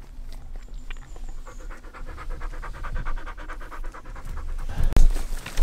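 A dog panting fast and evenly, several breaths a second. Near the end there is one sharp thump.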